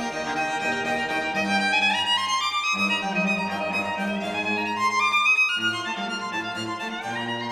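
Background music with a violin playing repeated rising runs of notes over a lower accompaniment whose notes change every second or so.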